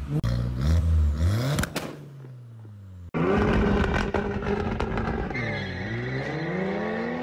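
A car engine revved twice through its twin exhaust tips, then dying away. After a sudden cut, car engines run and pull away, the pitch dipping and then climbing again near the end.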